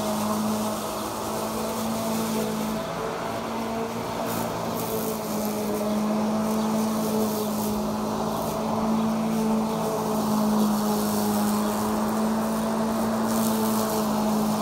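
Greenworks 60V cordless self-propelled lawn mower running at a steady speed, its electric motor spinning a stacked cross-blade (X-blade) as it cuts grass: a steady electric hum with blade whoosh. The sound grows a little louder past the middle.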